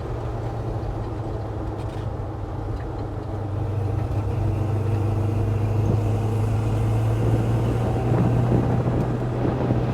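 383 stroker small-block V8 in a 1966 Chevy C10 cruising at a steady highway speed, about 2,500 RPM at 55 mph through a 5-speed, with a steady low engine and exhaust drone. It gets slightly louder about halfway through.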